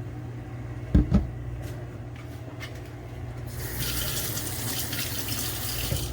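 Two dull knocks about a second in, then frothed milk poured from the milk frother into a cup with a steady pouring hiss from about three and a half seconds in.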